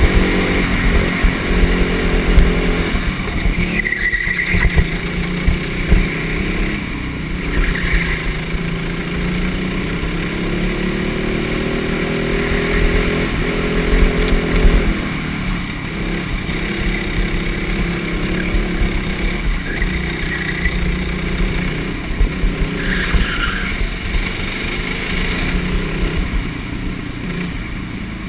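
Go-kart engine running flat out on a lap, its pitch rising and falling over several seconds as the kart speeds up on the straights and slows for the corners. Heavy rumble and buffeting on the onboard camera's microphone.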